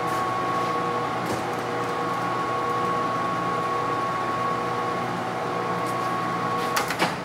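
Leblond Makino servo shift lathe running steadily at 45 RPM spindle speed, a steady hum of the main motor and geared head. Near the end there are a few sharp clicks and the running sound drops.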